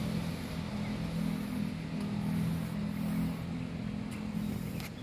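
A vehicle engine running steadily nearby, a low even hum, over the rustle and wind noise of a handheld phone on the move.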